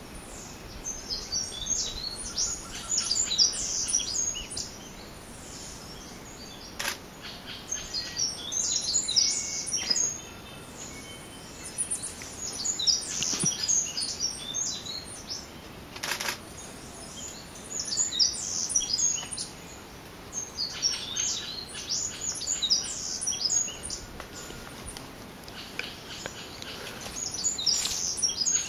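A bird singing in repeated bouts of quick high chirps, each phrase lasting two or three seconds and coming every four to five seconds. Two sharp clicks stand out, one about seven seconds in and one past the middle.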